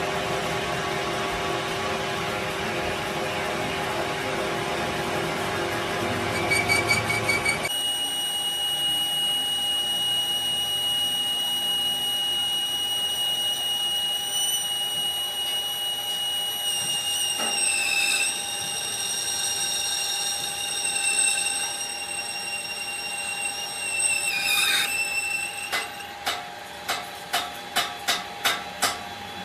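Workshop machinery running. After an abrupt change, a steady high-pitched machine whine sounds, wavering briefly a few times. Near the end come about eight quick, evenly spaced strikes.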